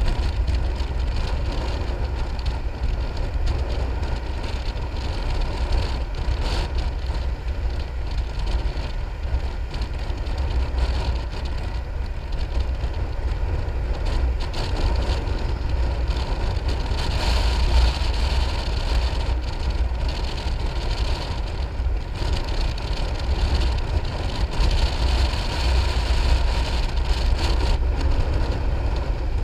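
Piaggio MP3 500 scooter riding along a road: steady wind rush and low rumble on the handlebar-mounted microphone, with the engine and tyre noise underneath.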